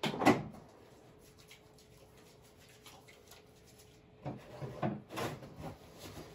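Grey plastic snake tub being handled: a sharp knock and scrape right at the start, then a few shorter bumps and rubbing sounds about four to five seconds in.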